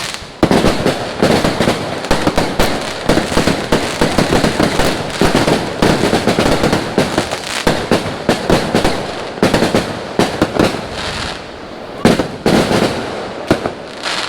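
Fireworks and firecrackers going off in a dense, continuous barrage of rapid bangs and pops, easing briefly about eleven seconds in before picking up again.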